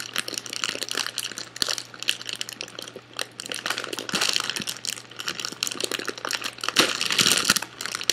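Crinkly snack bag of Cheetos Popcorn crackling as it is pulled open by hand, with the loudest burst of crackling about seven seconds in as the sealed top gives way.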